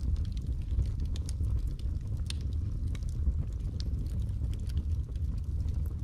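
Logs burning in a fireplace, crackling with scattered sharp pops and snaps over a steady low rumble of the flames.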